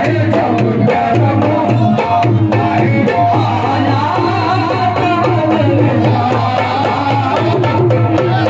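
A man singing a qawwali-style Sufi devotional song into a microphone, over regular hand-drum strokes.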